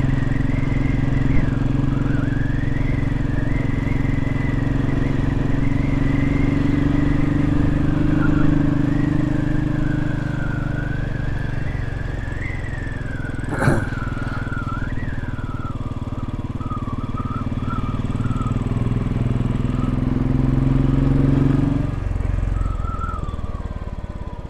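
Royal Enfield Classic 500's single-cylinder engine running steadily while riding, with wind noise over the microphone. A single sharp click about halfway through, and the engine note falls away near the end.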